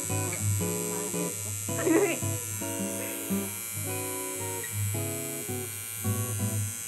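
Coil tattoo machine buzzing steadily while it needles the skin, under quiet background guitar music; a short bit of voice about two seconds in.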